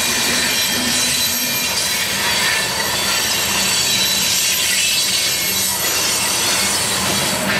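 Loaded coal cars of a long freight train rolling past close by: steady, loud noise of steel wheels on the rails, with a thin high-pitched wheel squeal over it.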